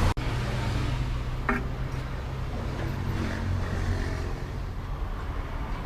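Steady low hum of a running motor, unchanging in pitch.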